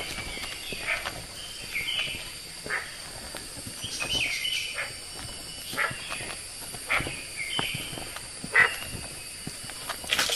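Repeated short animal chirps and squeaks, several sliding down in pitch, over a steady high whine, with scattered faint clicks.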